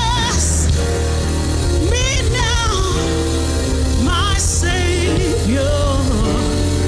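Gospel worship music without words: sustained chords over a steady bass, with a wavering melody line that bends and shakes above them.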